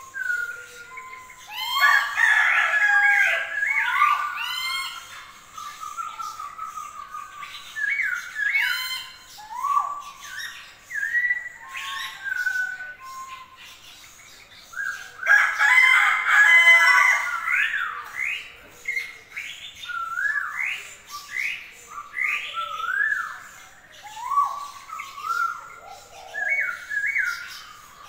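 Several small songbirds in an aviary chirping and whistling: many short notes that slide up or down in pitch, with two louder, busier stretches of song, about two seconds in and again about fifteen seconds in.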